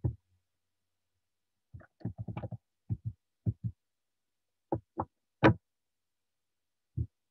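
About a dozen short, low knocks and clicks at irregular intervals, typical of desk and mouse handling picked up by a computer microphone on a video call, with a quick cluster early on and the loudest, sharpest knock a little past halfway.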